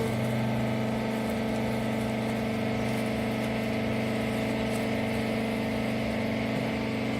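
Rag baler machine's motor running with a steady, even hum.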